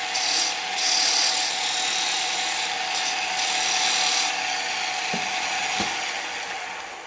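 Wood lathe running with a steady motor hum while a tool scrapes the spinning wooden hammer handle, with two light knocks about five seconds in. The sound fades near the end as the lathe is switched off and winds down.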